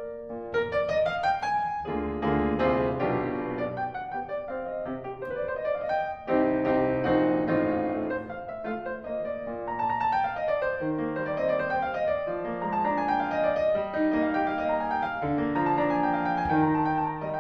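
Background piano music: flowing runs of notes.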